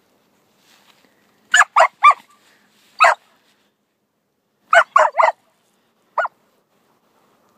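Australian shepherd puppy barking: eight short, high, sharp barks in bursts, a quick run of three, a single one, another run of three, then a last single bark.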